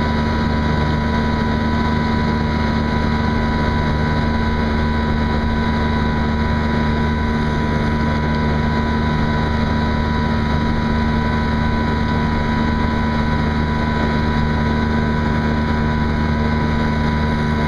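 Force 25 two-stroke outboard motor running steadily at an even speed, its pitch unchanging.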